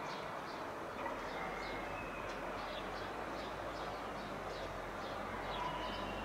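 Steady rushing jet-engine noise of an Airbus A319CJ flying overhead, with small birds chirping several times a second on top.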